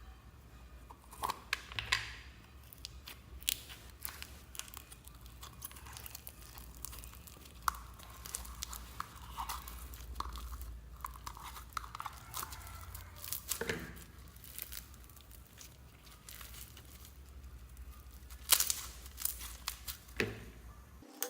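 Slime being squished and mixed together, giving irregular sticky crackles, pops and clicks, with the loudest pops about 18 seconds in.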